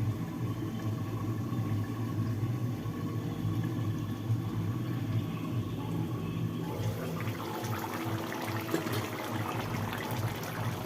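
Chicken kosha curry bubbling and simmering in the pan over a steady low hum, with a busier crackle of sizzling setting in about seven seconds in.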